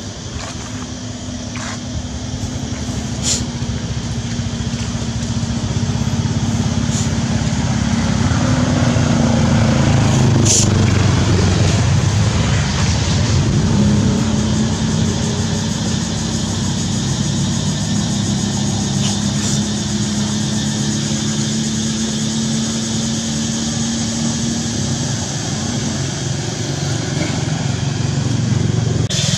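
A motor engine running steadily, getting louder over the first ten seconds or so and then holding level.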